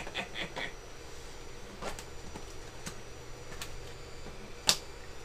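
Hard 3D-printed plastic parts clicking and knocking as they are handled and pressed together, a few separate clicks spread out, then one loud sharp crack near the end as a printed piece breaks.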